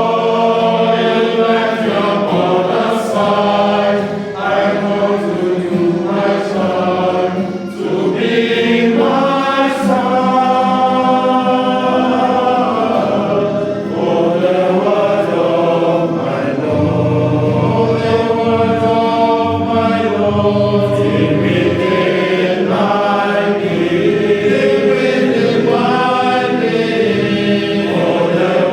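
A choir singing a hymn, many voices together in a long continuous phrase.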